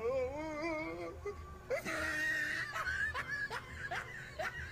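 Laughter: a drawn-out wavering laugh, then after a brief hissy breath, a run of short rising laughs, about three or four a second.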